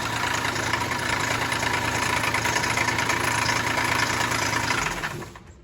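2009 Dodge Charger's 2.7 V6 engine running with a rough rumbling, then shut off about five seconds in. The mechanic hears a lot of water pump noise in it and suspects a failed internal water pump whose bearings threw the engine out of time.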